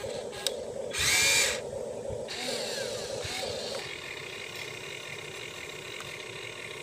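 Huina radio-controlled toy excavator's small electric motors whining steadily as the boom and arm move. There is a brief loud hiss about a second in.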